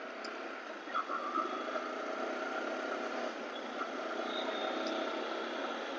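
Yamaha R15M motorcycle's single-cylinder engine running steadily while riding, mixed with road and wind noise and picked up through the rider's wireless mic with the low end cut off.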